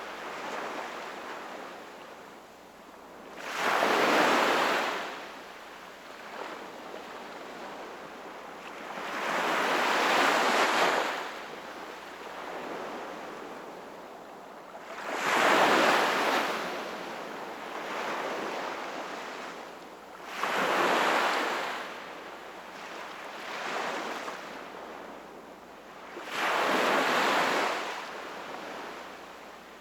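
Sea waves breaking and washing in, five surges of hiss about every five to six seconds with a quieter wash between them.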